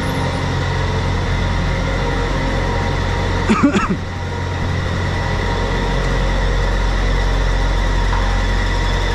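Steady low drone of a diesel truck engine idling in a large service bay. About three and a half seconds in, a brief louder sound wavers in pitch over it.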